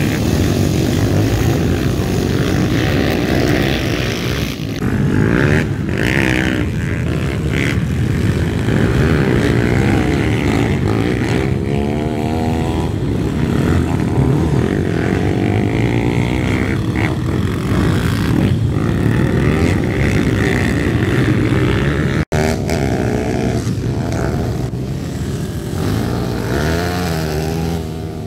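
A pack of YCF pit bikes racing together, their small single-cylinder four-stroke engines revving up and down with throttle and gear changes, several bikes overlapping. The sound cuts out for an instant about three-quarters of the way through.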